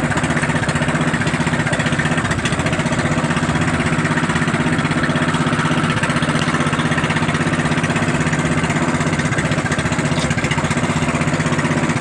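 Engine of a motorized outrigger boat (bangka) running steadily under way, a loud, fast, even chugging with no change in speed.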